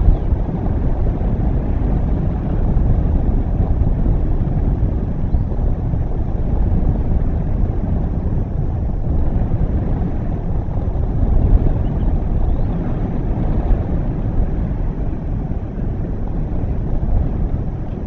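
Wind buffeting an outdoor microphone: a steady low rumble that surges and eases without letting up.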